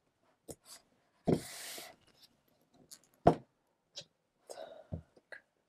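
Hands handling a cardboard headphone box and its contents while unpacking it: light taps and clicks, a short rustle of packaging about a second in, and a sharper knock about three seconds in.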